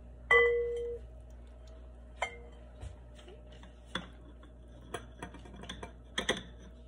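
Light clicks and clinks of kitchen things being handled. A louder hit about a third of a second in rings briefly with a steady tone, and scattered small knocks and ticks follow.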